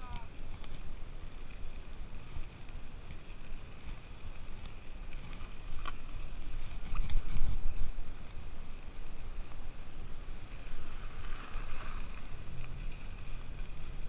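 Wind buffeting the action camera's microphone over the rumble of mountain-bike tyres rolling on a rough dirt road, with a faint steady high buzz and a few light rattles or ticks.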